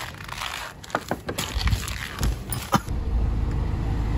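Clicks and knocks of a Volkswagen Vento's door and fittings as someone gets in and the door shuts, the last knock the loudest. From about three seconds in, the car gives a steady low rumble and hiss as it runs with the climate-control fan on.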